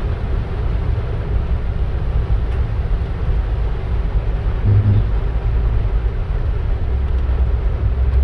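Steady low rumble of a car driving, heard from inside the cabin, with an even hiss of heavy rain and wet road over it. A brief low hum rises above the rumble about five seconds in.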